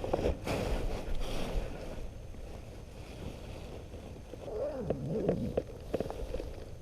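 Rustling of a sleeping bag's fabric as a person shifts and works their way into it, with a few small clicks and a brief wordless voice sound about five seconds in.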